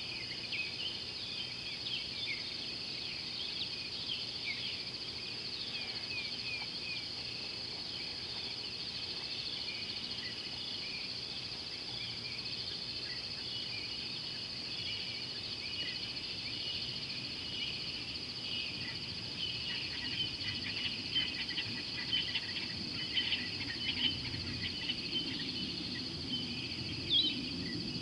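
An evening chorus of insects gives a steady high drone, with many short chirps and calls scattered over it. A low rumble grows over the last several seconds.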